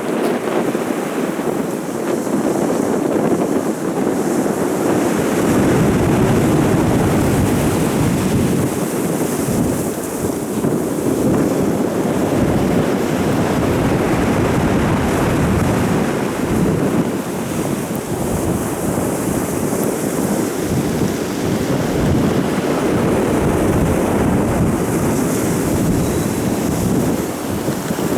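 Stormy sea surf crashing and washing continuously, with strong wind buffeting the microphone.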